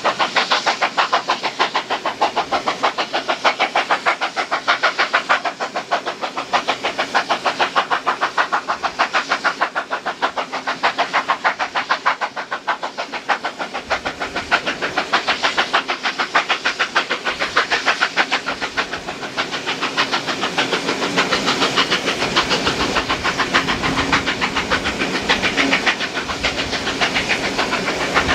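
Steam locomotive 3801 working hard under steam, its exhaust beats coming in a fast, steady rhythm of about five chuffs a second, heard from a carriage window behind the engine.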